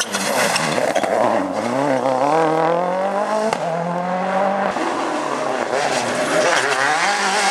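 World Rally Car engines at full throttle on a tarmac stage: a Ford Focus WRC accelerating out of a bend, its pitch rising through the gears with a shift about halfway through, then a Citroën C4 WRC revving as it takes the next corner near the end.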